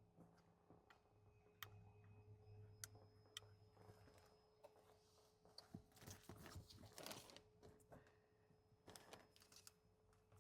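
Faint clicks and rustling of plastic wiring-harness connectors and wires being handled and pushed together, over a faint steady hum.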